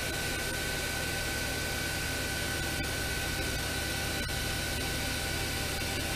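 Fadal VMC 6030 CNC machining center standing powered up: a steady machine hum and hiss with a constant high-pitched whine.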